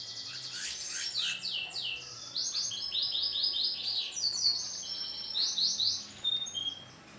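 Canary singing: a fast run of high chirps and trills, each phrase a quick repetition of one note before switching to another, tailing off near the end.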